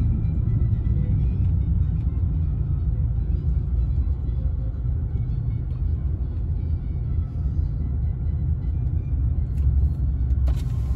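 Steady low rumble of a car's engine and tyres heard from inside the cabin as it moves at low speed.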